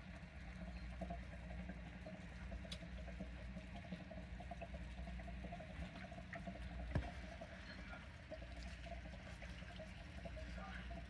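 Water trickling over a steady low hum in a frog tank, with one sharp click about seven seconds in.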